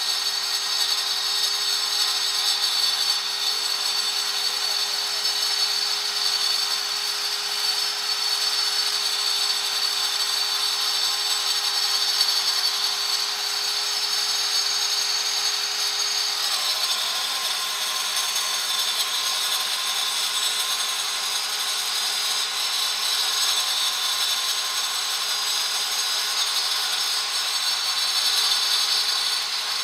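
Handheld electric marble cutter with a water-fed diamond blade cutting through granite. It runs steadily throughout with a high-pitched whine.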